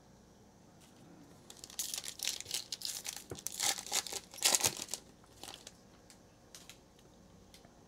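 Foil wrapper of a Panini Prizm trading card pack being torn open by hand, crinkling and tearing for about three seconds, then a few light crackles.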